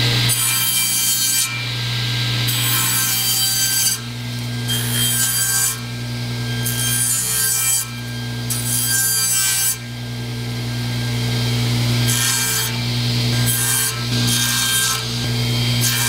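Table saw running with a steady motor hum while its blade cuts into a thin birch stick in a series of about seven short passes, each a second or so long, splintering the wood to rough out a point.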